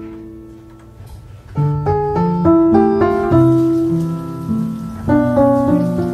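Gentle solo piano music, one note after another. About halfway through, the steady hiss of a kitchen faucet running into the sink joins it.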